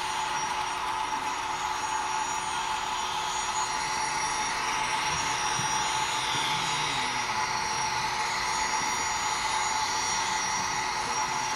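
Steady steam hiss from a model steam locomotive's sound system, with a faint steady hum under it.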